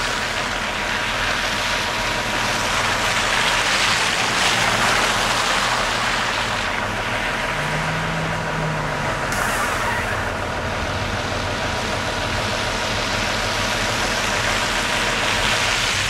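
Orion VII city bus stuck on a snowy hill with its drive wheels spinning: a steady engine drone under a hiss of tyres churning snow and slush. The engine note rises briefly about eight seconds in, and a car passes near the end.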